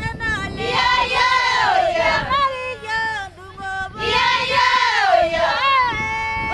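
Maasai women and children singing together in high voices, with a short drop in the singing about halfway through and a long held note near the end.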